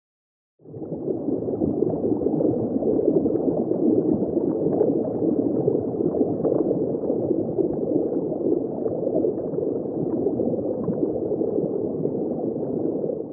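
Underwater recording of dense, steady bubbling and churning water, muffled and dull with no high end. It starts about half a second in and fades out near the end.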